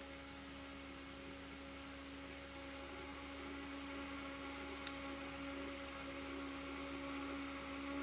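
Small DC motor of a homemade table fan running on a 12-volt adapter, spinning its plastic blade and driving the oscillation gearbox: a steady hum. One faint click about five seconds in.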